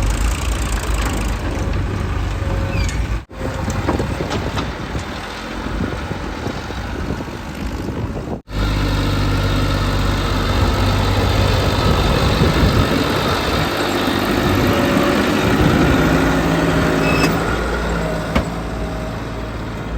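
Diesel engines of heavy earth-moving machinery, a backhoe loader and tractors, running steadily, with a low hum. The sound drops out abruptly twice, about three and eight seconds in, where clips are joined.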